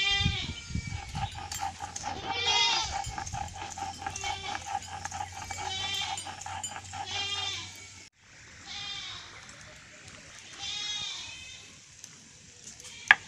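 Goats bleating over and over, a wavering cry every second or two.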